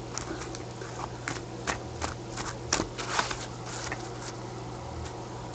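A deck of cards being shuffled by gloved hands: irregular soft clicks and flicks of the cards against each other, over a low steady hum.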